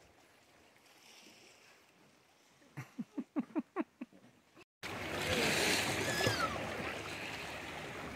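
Quiet trail with a quick run of about seven short knocks, then, after a cut, a steady wash of lake water lapping around a shoreline rock, with a brief gliding call about a second in.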